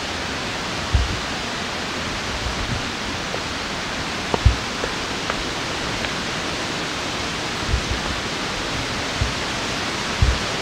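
Steady rush of falling water from a nearby waterfall. A few soft low thumps come from walking along the trail.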